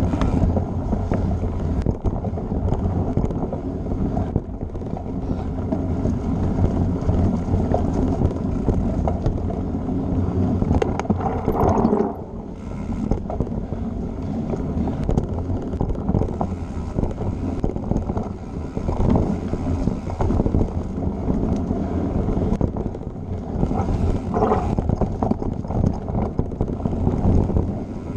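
Mountain bike riding along a dirt singletrack: wind buffeting the camera's microphone over the rumble of tyres on dirt and the rattle of the bike over bumps, briefly quieter about twelve seconds in.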